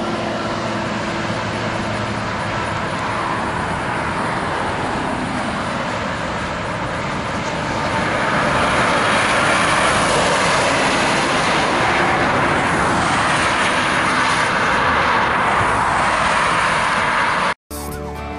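Highway traffic going past: a steady rush of tyre and engine noise that swells about eight seconds in as vehicles draw close and stays loud, then cuts off abruptly near the end.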